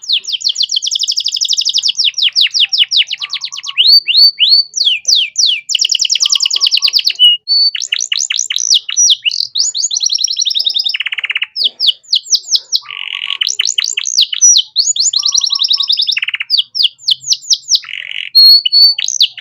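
Domestic canary singing a long, continuous song of rapid trills and rolls made of fast repeated sweeping notes, mixed with short lower notes, with only brief pauses.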